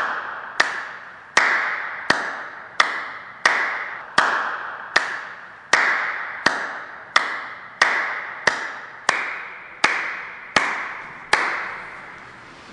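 One person clapping slowly and steadily, roughly three claps every two seconds, each clap echoing and fading through a large, empty hall.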